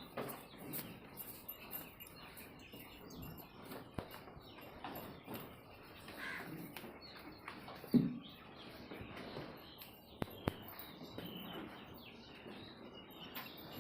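Small birds chirping over a low farmyard background, with a few sharp clicks and one short, low thud about eight seconds in.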